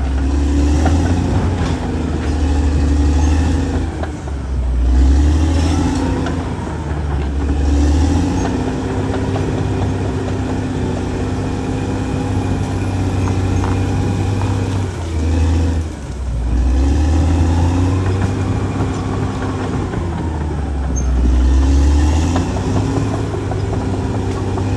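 Caterpillar D6R XL bulldozer's diesel engine working under changing load, its pitch rising and falling in repeated swells every few seconds over a steady low rumble.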